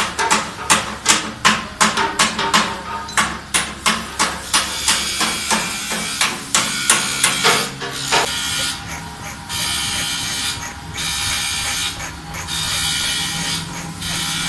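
A quick run of hammer blows, a few a second, during tire repair work. About eight seconds in they give way to a small electric power tool running in bursts of a couple of seconds, with short pauses between.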